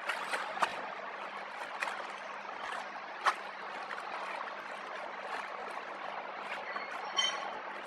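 Clear plastic flow-wrap packs of dried noodles crinkling and clicking as they are picked up and handled, with a few sharp crackles, the loudest about three seconds in. A steady hiss and a low hum run underneath.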